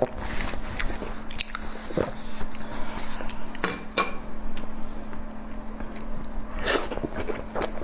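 Close-miked eating: irregular biting and crunchy chewing with wet clicks of the mouth.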